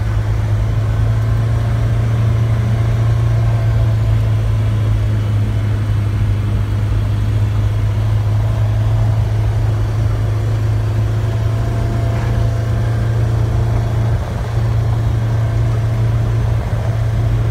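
Polaris Ranger XP 900 side-by-side's twin-cylinder engine running at a steady pace while driving, heard from inside its enclosed cab as an even low drone.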